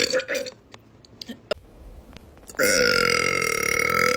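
A person burping: a long, loud, steady burp starts about two and a half seconds in and holds for about a second and a half before stopping abruptly.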